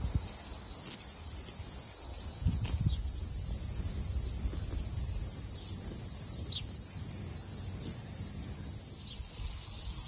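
Steady high-pitched chorus of insects over a low outdoor rumble, with a few brief soft tearing sounds as miniature ponies graze close by.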